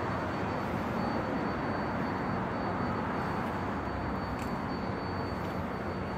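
Steady outdoor city noise from an elevated station platform: an even wash of distant traffic and rumble with no distinct events, and a faint high steady whine.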